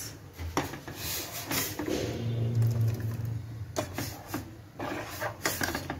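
A metal spoon clinking and scraping against a steel cooking pot, in scattered knocks. A steady low hum comes in for about a second partway through.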